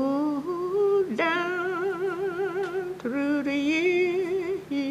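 An elderly woman singing a gospel hymn unaccompanied, in three long phrases of held notes with a wide, wavering vibrato.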